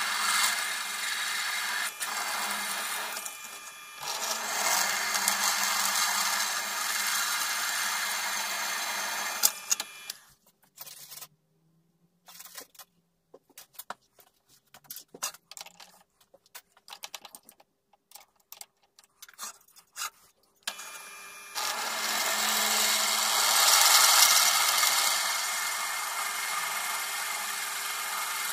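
Drill press with a twist bit cutting into a metal bar held in a drill-press vise: a loud, dense cutting noise in two long spells, with a short dip about 3.5 s in. In the middle, between about 10 and 21 s, the drilling stops and only scattered clicks and knocks are heard.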